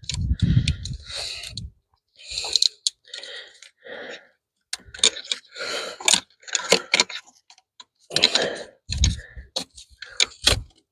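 Hands working wiring and connectors in a diesel engine bay: irregular clicks, rattles and rustling in short bursts with brief pauses between.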